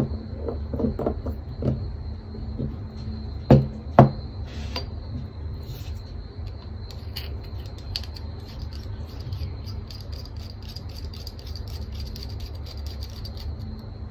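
Small clicks as a glass ink bottle is capped, then two sharp knocks about three and a half and four seconds in as the bottle is set down on the hard tabletop. After that come faint rapid ticks as a fountain pen's barrel is screwed onto its section, over a steady low rumble and a thin high whine.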